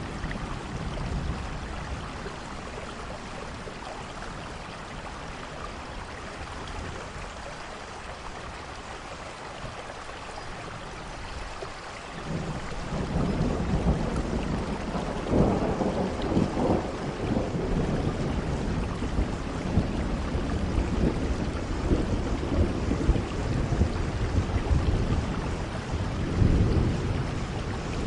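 Steady rain with thunder. A low rumble of thunder dies away at the start. About halfway through a long roll of thunder builds and keeps rumbling, swelling several times, to the end.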